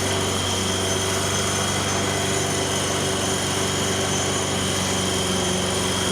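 Honda lawn mower engine running steadily just after a pull start with the choke on. It keeps running with the safety handle released because the kill-switch wire to the coil is disconnected.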